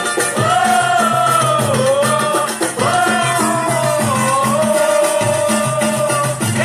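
Samba music: a singer's voice carrying a bending, held melody over a steady percussion beat with shaker-like ticks and repeating low bass notes.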